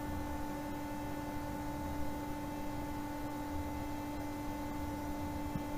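Steady electrical hum holding two constant tones, one low and one higher, over faint hiss.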